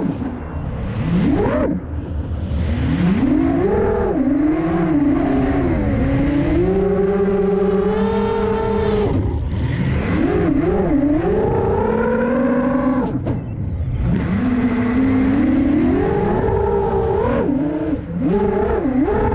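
Brushless motors of a 6-inch FPV quadcopter whining, the pitch climbing and falling with every throttle change, dropping away briefly a few times as the throttle is chopped. Heard from the onboard camera.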